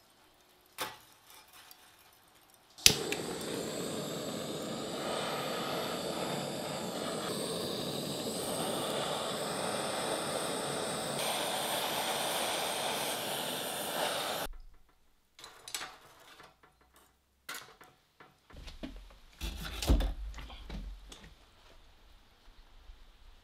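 Handheld gas blowtorch lit with a sharp click, then hissing steadily for about eleven seconds before being shut off abruptly. Afterwards come a few scattered knocks and clatters, with a louder thump near the end.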